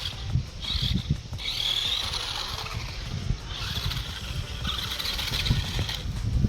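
Toy RC monster truck's electric motor and gears whirring in short bursts, starting and stopping several times as the throttle is worked, over low rumbling with small knocks.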